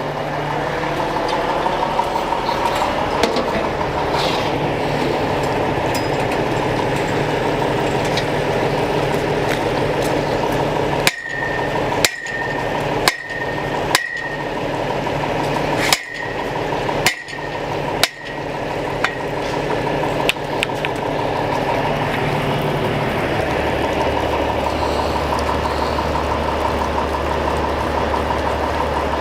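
Pump truck's engine running steadily. Midway there is a run of about seven sharp metallic knocks, each with a brief ring. Later the engine's note drops lower and deepens.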